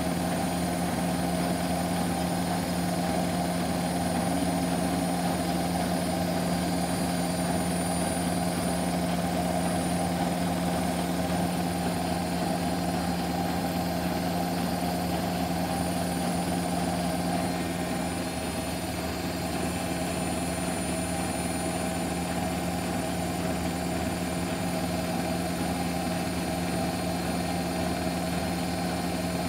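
Bosch Classixx 6 front-loading washing machine in a high-speed spin on its 1200 rpm setting: the drum motor runs with a steady hum and a faint high whine, dipping slightly in level about two-thirds of the way through.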